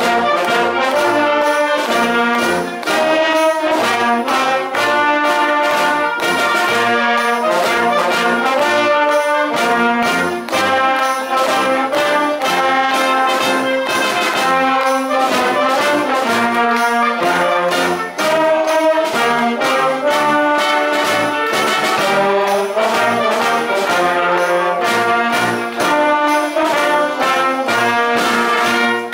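Concert wind band playing, brass to the fore with trombones and trumpets carrying the tune over a steady percussion beat.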